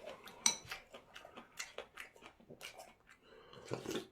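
Close-up eating sounds: irregular soft clicks and smacks of chewing and utensils, several a second.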